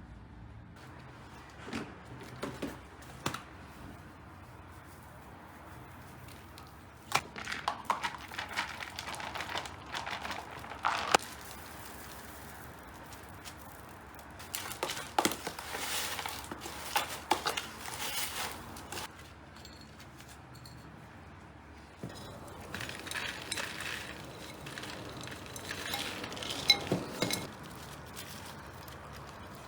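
Handling sounds of repotting a houseplant: rustling, scraping and short knocks as the pot, soil and plant are worked, in four separate bouts.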